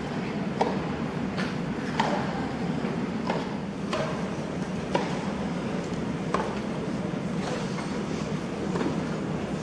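Tennis rally: sharp pops of rackets striking the ball, roughly one a second and sparser near the end, over the steady murmur of a large stadium crowd.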